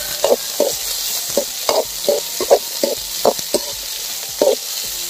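Sliced shallots sizzling in hot oil in a metal pan while a slotted metal spoon stirs them, scraping and clinking against the pan about two or three times a second. The stirring strokes stop near the end.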